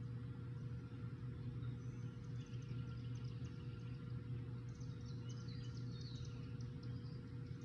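Steady low outdoor hum, like distant traffic or a running motor, with a faint steady higher tone in it. Small birds chirp high over it from about two and a half seconds in, busiest near the end.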